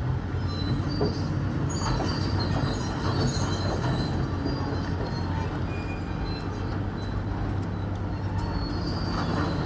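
Caterpillar excavator's diesel engine running steadily, with high-pitched metal-on-metal squeals from the machine coming and going over it.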